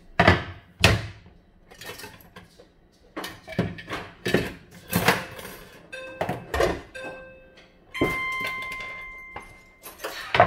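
A run of household knocks and clatter, like doors or cupboards being handled and objects set down. About eight seconds in, something is struck and rings with a clear tone that fades over a second and a half.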